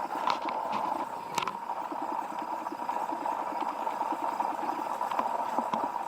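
H-Bot 3D printer running: its stepper motors sound in short pulses several times a second as the print head shuttles back and forth, over a steady hum, with a few sharp clicks.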